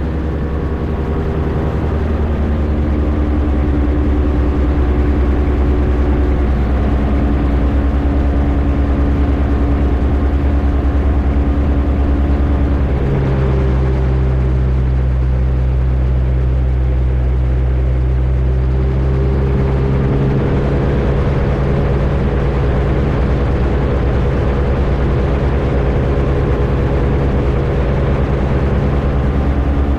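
Rotax 582 two-stroke engine and propeller of an X'Air microlight running steadily, heard from the cockpit. The engine note shifts to a new steady pitch about 13 seconds in and again about 20 seconds in, power changes during a touch and go on final approach.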